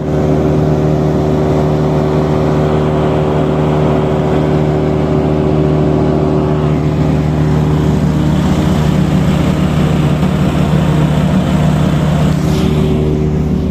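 Timberwolf wood chipper's engine running steadily at a constant speed, freshly started from cold after sitting unused.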